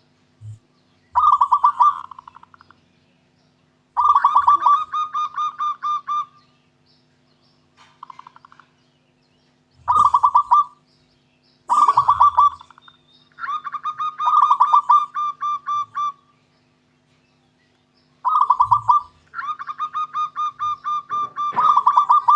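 Zebra dove (perkutut) singing its cooing song: repeated bouts of rapid staccato notes, each bout a quick run of clipped coos, some short and some drawn out for two or three seconds, with pauses between.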